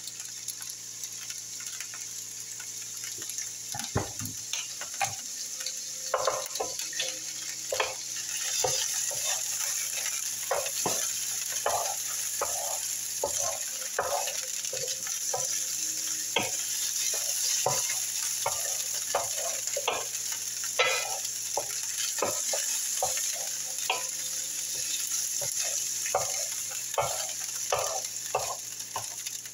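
Frozen peas, carrots and edamame sizzling steadily in a nonstick skillet as they cook down, with a wooden spatula stirring and scraping them against the pan in frequent short strokes from about four seconds in.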